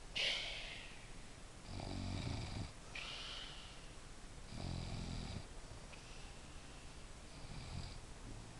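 Snoring: three slow, rough breaths about three seconds apart, with a couple of short sharp sounds between them.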